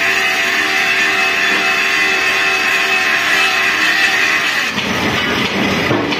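Heavy rim-forming machine running with a steady mechanical whine and hum. About four and a half seconds in, the sound turns to a rougher, lower rumble.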